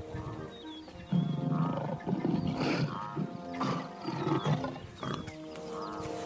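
Lion growls and snarls in repeated rough bursts, over background music with long held tones.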